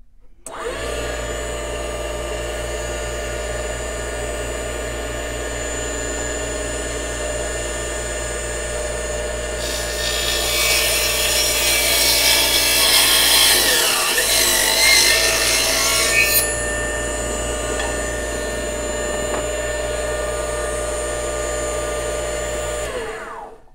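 Mini benchtop table saw switched on and running with a steady motor whine. About ten seconds in, the blade cuts through a block of wood with a loud rasping for roughly six seconds, and the motor bogs down briefly under the load. It then runs free again and is switched off near the end, winding down.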